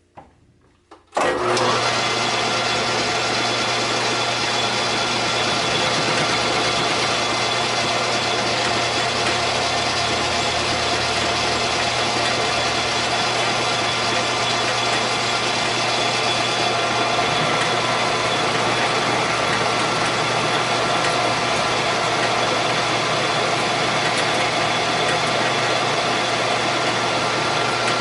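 Metal lathe switched on about a second in, its motor and drive coming up to speed and then running steadily with a constant hum and whine.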